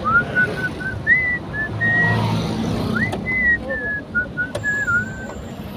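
A person whistling a tune in short, stepping notes, over the steady low rumble of the car in traffic.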